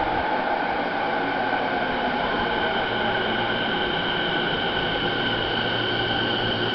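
A commuter electric train standing at an underground station platform, its equipment giving a steady hum and whine with two steady high tones over an even rushing noise.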